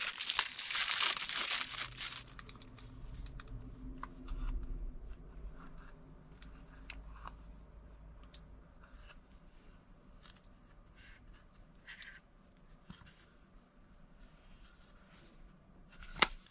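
Thin plastic packaging bag crinkling and tearing for about two seconds, then faint clicks and light rustles of small plastic toy pieces being handled.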